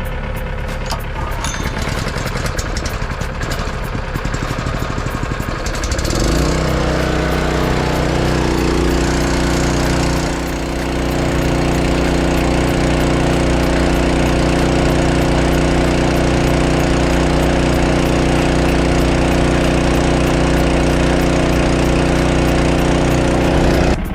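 Tractor engine running. About six seconds in the engine speed rises, then it holds a steady higher drone until it stops abruptly at the end.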